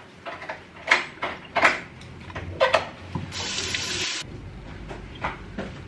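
Kitchen work sounds: a few sharp clacks, then a tap running briefly, turned on and off in about a second, near the middle.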